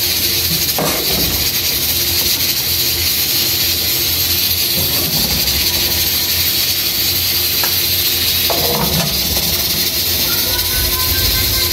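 A steady hiss with a low rumble underneath, over which a steel ladle knocks a few times against a steel pot as beef karahi is spooned into a glass dish.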